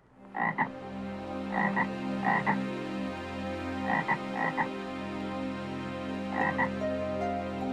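An animal calling in short double notes, about six times at uneven intervals, over a steady background hum.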